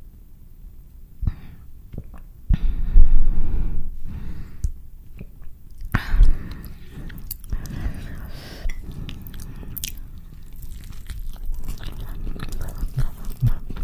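Close-miked eating sounds: quiet mouth noises early on, then wet chewing and bites into a soft flour-tortilla carne asada burrito, with sharp clicks and smacks through the second half.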